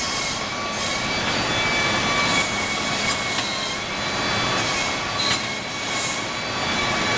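Steady industrial machinery noise: a constant rush with high, steady whining tones through it and now and then a brief hiss.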